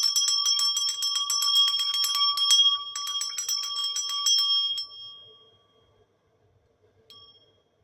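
Small brass hand bell shaken rapidly, its clapper striking many times a second over a clear ringing tone. The shaking stops about five seconds in and the ring fades away, with one brief faint ring near the end.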